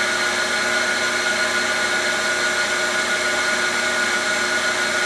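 Cylindrical grinding machine running steadily, its wheel spindle and drives giving a constant whine with a few steady tones over a hiss, as a steel shaft is ground to size a fraction of a thousandth per pass.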